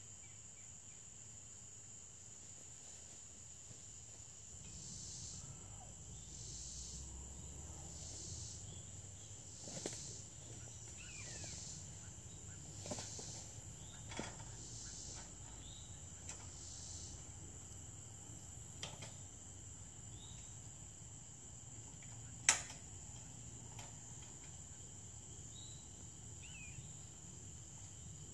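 Steady chorus of crickets and other insects, with a pulsing insect call about once a second through the first half. Several sharp metal clanks from the steel ladder tree stand as it is set against the tree and climbed; the loudest comes about 22 seconds in.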